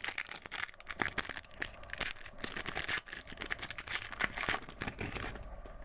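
Foil wrapper of a basketball trading-card pack crinkling and tearing as it is pulled open by hand: a dense run of crackles that dies down about five seconds in.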